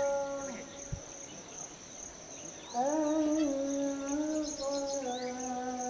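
Humming in long held notes that slide up into each note and shift pitch in small steps. It breaks off about half a second in and starts again just before the middle. Above it runs a thin, steady, high-pitched insect buzz.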